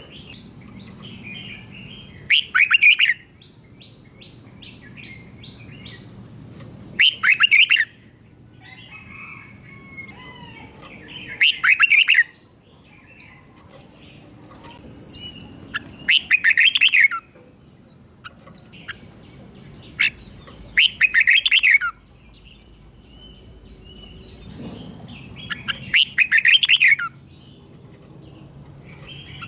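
Red-whiskered bulbul singing its loud, doubled 'berl' song phrase six times, each about a second long and repeated about every four to five seconds. Fainter chirps fill the gaps between phrases.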